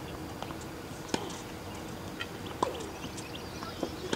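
Tennis balls being struck and bouncing on a hard court: sharp pops about every second and a half, each with a short falling ring, and fainter clicks between. Faint bird chirps near the end.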